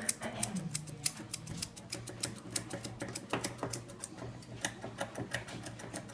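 Thinning scissors snipping the fur on a cocker spaniel's foot: a run of quick, crisp, irregular clicks, several a second.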